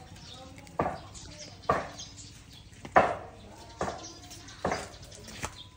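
A regular series of sharp knocks, about one a second, six in all, each dying away quickly.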